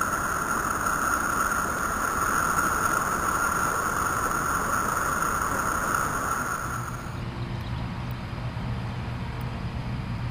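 A waterfall's rushing water, a loud, steady roar of falling water. About seven seconds in the sound turns duller and lower.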